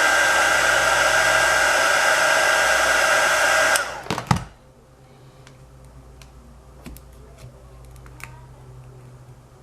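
Hot-air heat gun blowing steadily with a motor whine, warming the adhesive that bonds the cracked glass to the iPhone 6 LCD; it cuts off about four seconds in. Afterwards there are a few faint clicks and taps of small tools on the phone.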